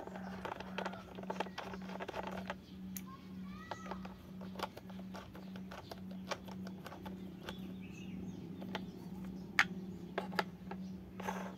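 Hard plastic parts of a take-apart toy train clicking and rattling as a plastic wheel is pressed on and a plastic toy screwdriver turns a plastic screw. A dense run of clicks fills the first two seconds or so, then scattered single clicks follow, with one sharper click near the end, all over a steady low hum.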